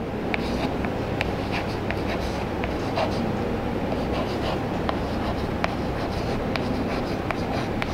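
Chalk writing on a blackboard: irregular short taps and scratches as the letters are formed, over steady background noise.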